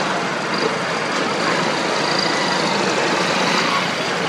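Steady road traffic noise, with vehicle engines running and passing.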